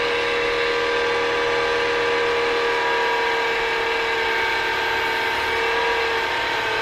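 Keda 56-63 195Kv brushless outrunner motor whining steadily as it spins a propeller in air through open gears. In the second half a cloth is pressed against the spinning rotor to load it, and the pitch sags slightly.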